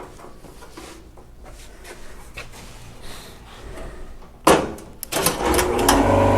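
Light clicks and knocks, then a sharp clank about four and a half seconds in. Near the end a shop air compressor starts up and runs with a loud, steady motor hum.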